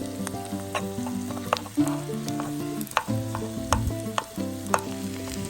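Food frying and sizzling in a pan while it is stirred, with sharp clicks of a utensil against the pan.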